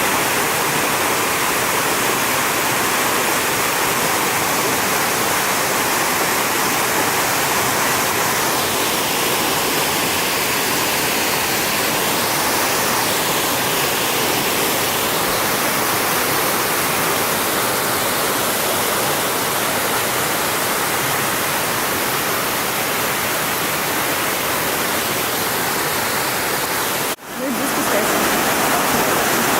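Dzhur-Dzhur waterfall: a loud, steady rush of falling water, broken by a brief dropout near the end.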